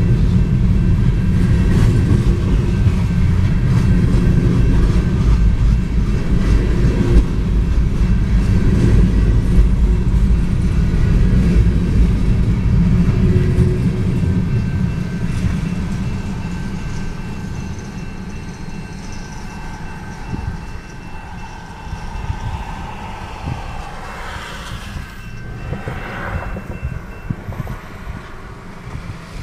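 Empty covered grain hopper cars of a freight train rolling past at a grade crossing: a heavy rumble with wheel clatter that fades away once the end of the train clears, about halfway through. The crossing's warning bell keeps ringing until shortly before the end, when the gates start to rise.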